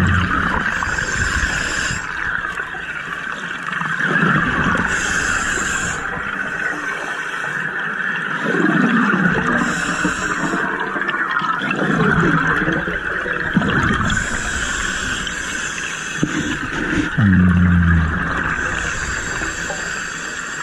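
A diver breathing underwater through a compressor-fed (hookah) regulator: a hissing breath in and a gurgling burst of exhaled bubbles come round about every four to five seconds over a steady hiss. A brief low droning tone sounds near the end.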